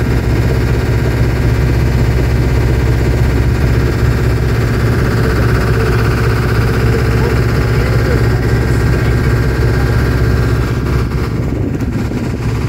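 Volvo inboard engine of a Hughes 35 sailboat running steadily under way as a low, even drone, which the owner judges to sound good.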